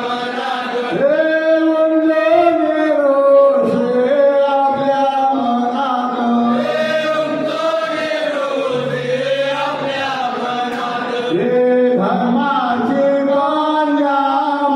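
A group of men's voices singing a devotional chant in unison, holding long notes that bend and glide.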